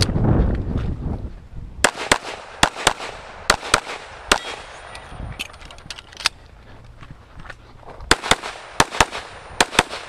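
Pistol shots from an STI Trojan .45 ACP single-stack 1911, fired mostly as quick pairs with short pauses between groups while the shooter moves through a stage. A low rumbling noise fills the first second before the first shots.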